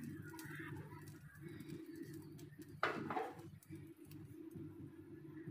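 A cheese-topped bread slice set down on a flat tawa pan, with a short scuff about three seconds in, over a faint steady low hum.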